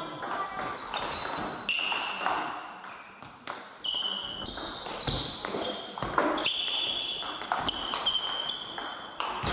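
Table tennis ball clicking off bats and the table during rallies, many short sharp pings in quick, irregular succession.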